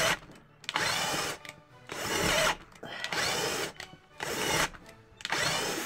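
Counterfeit Bosch GSR 18-2-LI Plus 18 V cordless drill boring a large bit into a wooden block in second gear. It runs in short bursts of about half a second, each with a rising whine, and stops abruptly about six times. The drill is struggling under the load and cutting out suddenly, which the owner takes to be some kind of overload protection.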